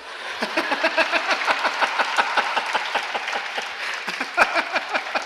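Audience clapping in a dense, steady run, mixed with hearty laughter from the speaker at the microphone.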